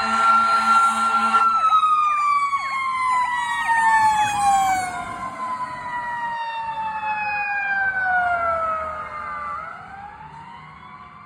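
A fire truck's mechanical Q siren holds a high wail, then winds down slowly in pitch over about eight seconds and begins to spin up again near the end, while an electronic siren yelps over it for a few seconds. A horn blasts under the siren's wail and cuts off about a second and a half in, and the sound fades as the truck moves off.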